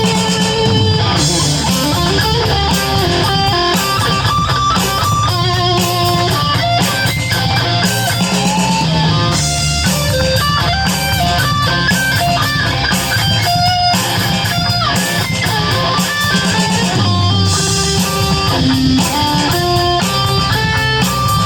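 Electric guitar played through a distortion effect, running changing single-note melodic lines over a continuous low end.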